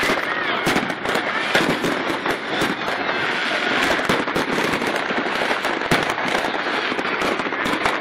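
Fireworks and firecrackers going off close by in a dense, continuous barrage: a steady crackle with many sharp bangs every second.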